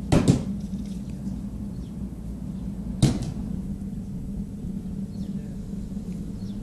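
Two sharp knocks over a steady low hum: a quick double knock at the start and a single knock about three seconds in.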